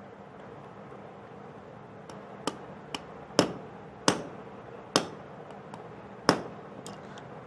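Light hammer taps on a steel nail held against a gas-stove burner jet, widening the jet's orifice to convert the stove from LPG to natural gas. About six sharp taps, irregularly spaced, starting about two seconds in.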